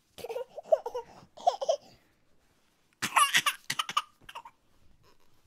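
A young child laughing in two short bursts, then a louder, higher-pitched burst of laughter about three seconds in.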